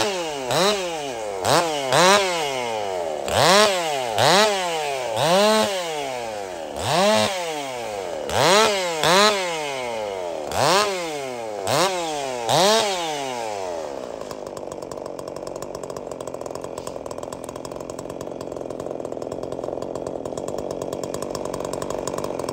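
Two-stroke gasoline chainsaw being blipped on the throttle a dozen or so times, about once a second, each rev rising and falling back, then left idling steadily from about 14 seconds in.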